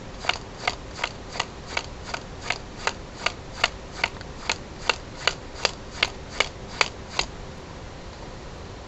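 Playing cards being dealt one at a time from the hand onto a pile, each card giving a sharp snap, a little under three a second in an even rhythm; the cards are center-dealt, pulled from between other cards in the deck. The dealing stops about seven seconds in.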